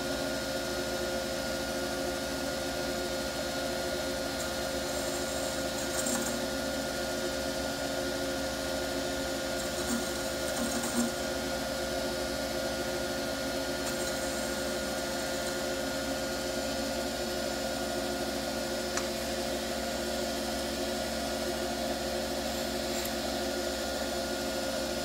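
Small jeweller's lathe running steadily, a motor hum with several level tones, while its tool machines the side of a sterling silver (925) ring blank down to width. A few faint brief scrapes come from the cut.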